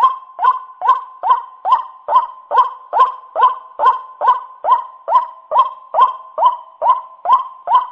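White-breasted waterhen (ruak-ruak) calling: a long, even run of short, sharp notes, about two to three a second, each sweeping quickly up in pitch.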